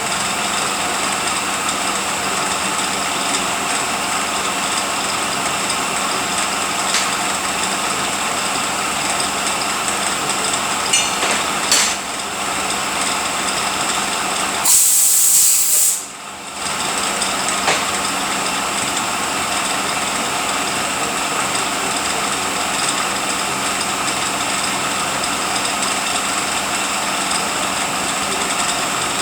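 Rebuilt heavy-truck drivetrain unit running steadily on a test dyno, a continuous mechanical running noise with a steady whine. Past the middle comes a loud burst of air hiss lasting about a second and a half, and the running briefly drops quieter right after it.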